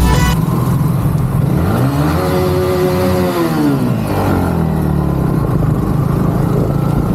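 Yamaha MT-15 motorcycle's single-cylinder engine on the move. Over steady road noise, the revs rise and then fall once about two seconds in, and ease off again a little later.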